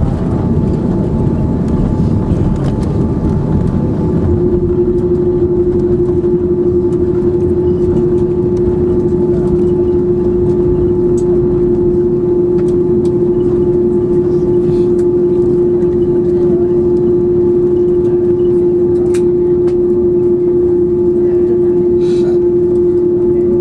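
Steady cabin noise inside an Airbus A330 airliner: a constant low rumble with a steady engine whine, which settles slightly lower in pitch and grows stronger about four seconds in. A few faint clicks are scattered through it.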